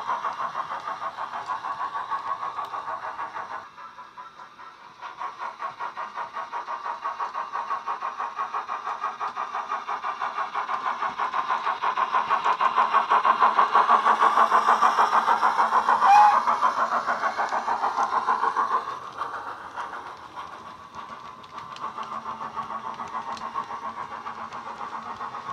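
Steam exhaust chuffs from a Wheeltappers DCC sound decoder in a Hornby BR 9F model locomotive, played through its small speaker as the model runs. The chuffs are rapid and even, dip briefly about four seconds in and grow loudest as the engine passes by. There is a short high squeak about sixteen seconds in, and the sound is fainter near the end.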